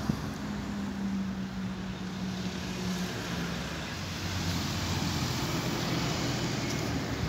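Street traffic: a car engine's low hum, then a broad rush of passing traffic that builds in the second half.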